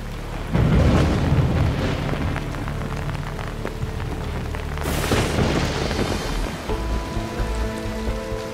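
Drama soundtrack: a sudden loud crash with a heavy low rumble about half a second in, a second noisy burst about five seconds in, over a steady hiss and background music.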